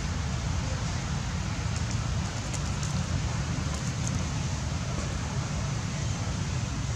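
Steady outdoor background noise: a low rumble with a hiss over it, and a few faint clicks about two to four seconds in.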